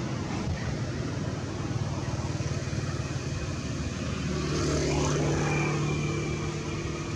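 A motor engine hums steadily, swelling louder about four and a half seconds in and easing off again near the end.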